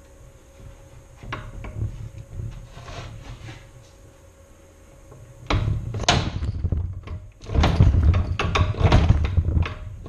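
Maytag two-stroke washing-machine engine being cranked over by hand on a bench, trying to start. A few light knocks come first, then from about five and a half seconds a loud, irregular mechanical clatter as it is turned over hard.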